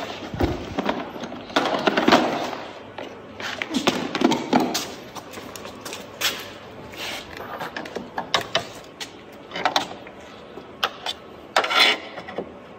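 Irregular clicks, knocks and scrapes of hand work with small tools and plastic parts on a car's headlight assembly, with short sharp clicks scattered throughout.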